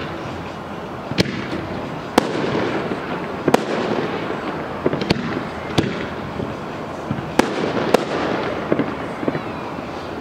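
Aerial fireworks display: about seven sharp bangs at irregular intervals over a continuous rumble of further bursts.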